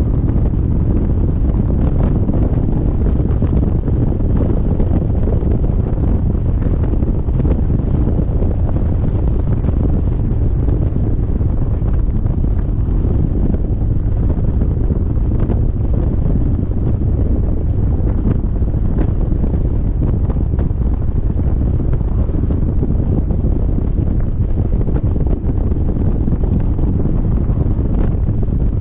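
Steady wind noise on the microphone of a motorcycle moving at road speed, dense and low.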